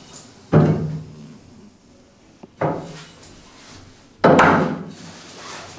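Three knocks of a spirit level being set down and shifted on the top edge of a white kitchen base-unit carcass, each dying away quickly; the first and last are the loudest.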